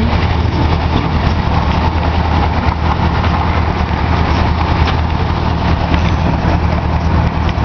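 Steady low engine hum of a motorised park ride "train", heard from on board its open carriage as it drives along.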